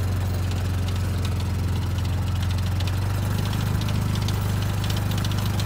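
Six-wheel ATV engine running steadily at low speed while towing a loaded trailer, a constant low drone.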